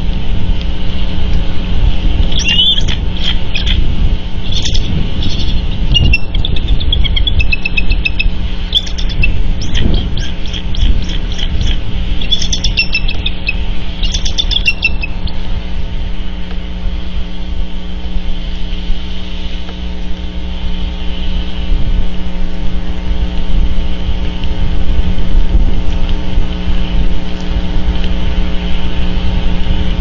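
A bird giving a series of high, chirping calls for about twelve seconds, stopping about halfway through. Under the calls there is a loud, steady low rumble with a faint hum.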